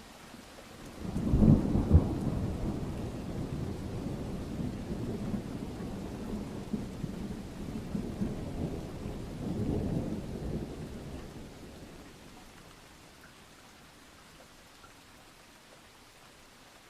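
A peal of thunder over steady light rain. It breaks about a second in with two loud claps, rumbles on with a second swell around ten seconds in, and dies away by about twelve seconds, leaving the soft hiss of the rain.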